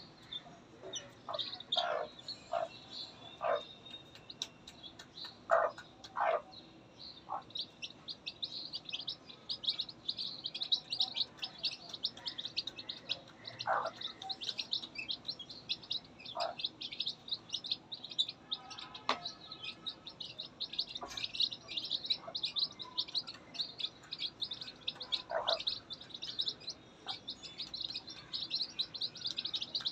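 Newly hatched chicks peeping in quick, high chirps that run almost without a break, with a mother hen's lower clucks now and then, most of them in the first several seconds.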